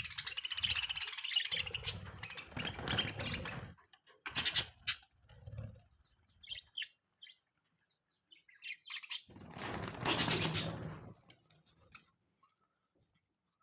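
Pet budgies chirping in short, high calls, mixed with rustling and knocking noises at the cage. The loudest noisy burst comes about ten seconds in.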